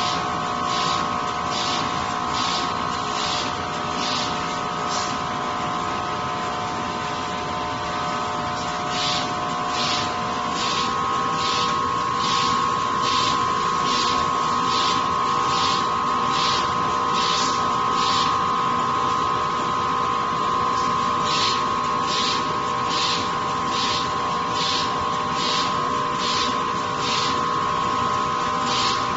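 Facial tissue converting machinery running, with a steady whine and short hissing strokes about three every two seconds. The strokes come in runs and stop twice for a few seconds, about five seconds in and again about eighteen seconds in.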